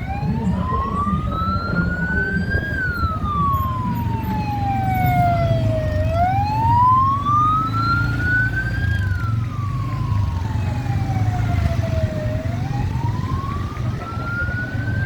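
Siren in a slow wail, its pitch rising for about three seconds and falling for about three, two and a half times over, above the low rumble of engines.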